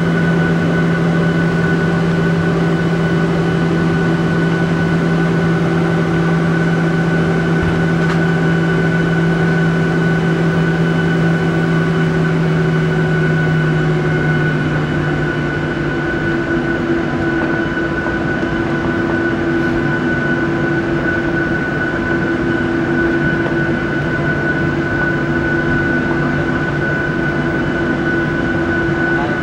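Jet airliner's turbofan engines at low taxi power, heard inside the cabin: a steady drone with a thin high whine over it. The deeper hum drops slightly in pitch about halfway through.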